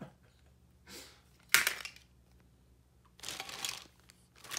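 A single sharp clack about one and a half seconds in, then a clear plastic bag crinkling for about a second near the end as a capuchin monkey handles a bag of toy tools.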